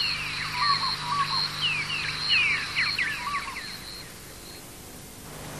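Birds calling in a busy chorus of quick downward-sweeping chirps and whistles over a repeated high held note, dying away about four seconds in.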